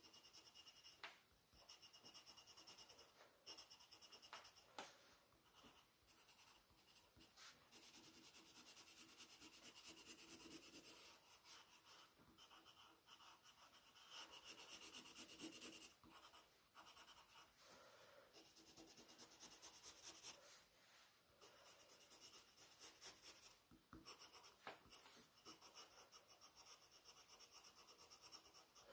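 Colored pencil rubbing on sketchbook paper in quick back-and-forth shading strokes, faint and scratchy.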